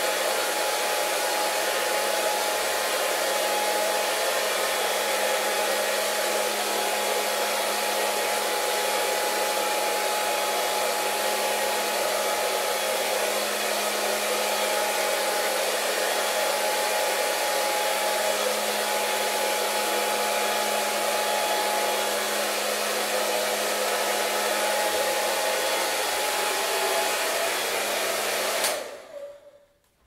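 Hair dryer running steadily: a loud, even rush of air with a low steady hum under it. Near the end it is switched off and the sound dies away over about a second.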